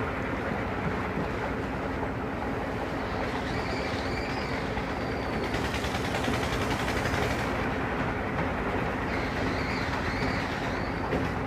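Construction machinery running steadily, giving a continuous dense mechanical noise with a faint steady hum.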